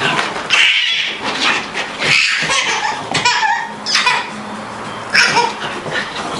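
A baby laughing and squealing in a string of short, high-pitched bursts, with a playing dog's noises mixed among them.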